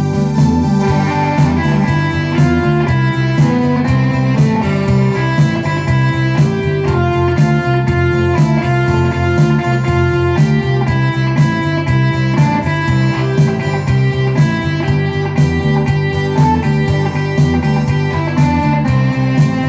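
Electronic keyboard playing music with a guitar-like sound over a steady rhythmic accompaniment, heard through the external loudspeaker it is plugged into.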